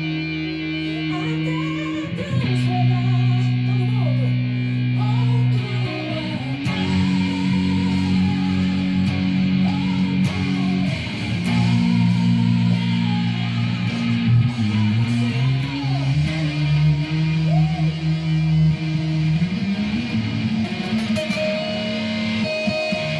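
A rock power trio playing an instrumental passage of a worship song: an electric guitar melody that slides and bends in pitch over bass and held chords that change every few seconds.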